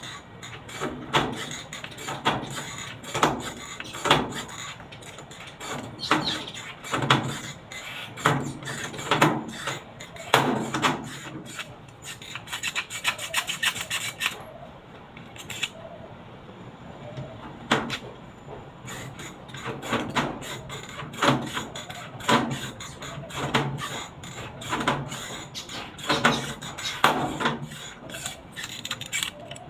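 Hand scraping strokes, like sanding or filing, worked over a washing machine's body panel. They come in irregular runs of quick rough strokes, with short pauses between runs and a quieter spell about halfway through.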